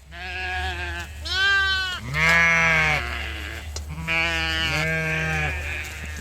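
Sheep bleating, about five calls in a row, two of them overlapping about four seconds in, with some calls wavering. A steady low hum runs underneath.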